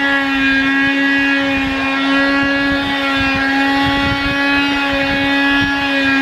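Morries 2-in-1 cordless handheld vacuum cleaner running: a steady motor whine held at one pitch over the rush of air.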